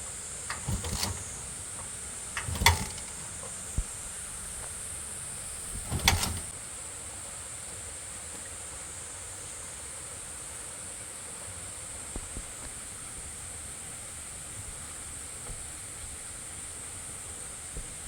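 A few short, sharp knocks, like things striking or being set down, in the first six seconds, the loudest about six seconds in, over a steady hiss that runs on alone afterwards.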